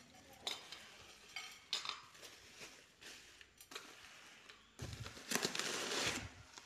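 Clear plastic packaging crinkling and rustling in short irregular bursts as a packed item is unwrapped by hand, with a louder stretch of over a second about five seconds in.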